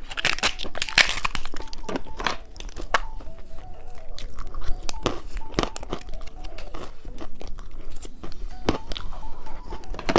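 Close-miked crunchy candy being bitten and chewed, with many irregular sharp crackles and crunches.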